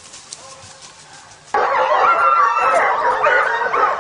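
A pack of hunting hounds baying together, many voices overlapping, coming in suddenly and loud about a second and a half in.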